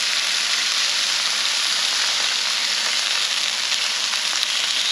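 Chinook salmon belly pieces frying in oil in a cast-iron skillet: a steady sizzling hiss as they sear.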